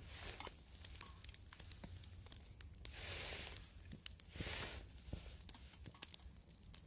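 Twigs crackling in a small folding wood-burning stove, with light clicks of metal tongs against a stainless steel cup as food is moved into it. Two soft rushing swells of noise come about three and four and a half seconds in.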